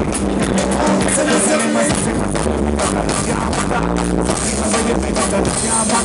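A live band playing amplified music through a PA: electric guitars, bass and drums, with a singer at the microphone, heard from within the crowd.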